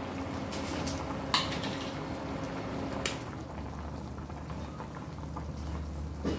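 Pot of chicken and pickled mustard greens soup boiling with a steady bubbling, and a few short sharp clicks now and then.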